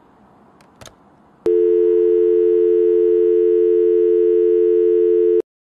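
Telephone dial tone: a steady, unbroken two-note hum that comes in about a second and a half in, after a faint click, and cuts off suddenly near the end.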